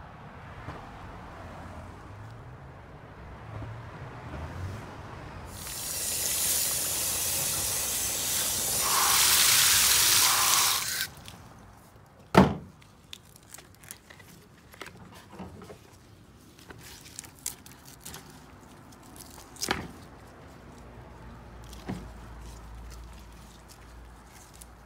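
A loud hiss of spraying water lasting about five seconds. Then a single sharp knock, followed by scattered small clicks and knocks as gloved hands work an orchid loose in a plastic pot of bark chips.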